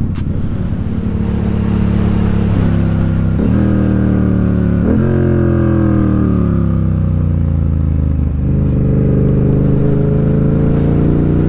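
Motorcycle engine on the move, likely the rider's Yamaha FZ-07 parallel twin. Its pitch jumps up twice, about three and five seconds in, then falls away over a few seconds as the bike slows. After about eight seconds it settles into a steady note that slowly climbs as the bike pulls away again.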